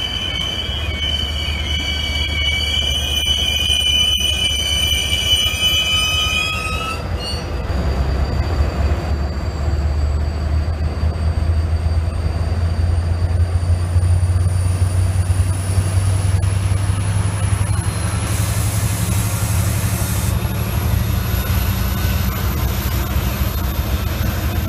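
Israel Railways double-deck passenger train moving slowly past, its wheels squealing in several steady high tones for the first few seconds. The squeal then gives way to the deep rumble of the diesel locomotive's engine as the locomotive comes level, with a faint high whine rising slowly in pitch.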